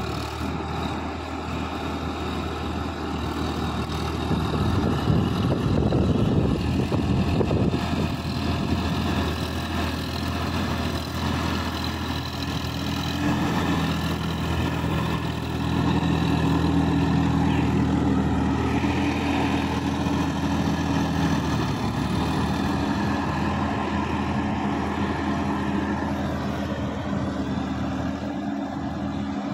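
Sonalika DI-50 RX tractor's diesel engine running steadily under load as it pulls a rotary tiller through a flooded paddy field, with water and mud churning around the tiller. It grows louder as the tractor passes close in the middle, then fades as it drives away.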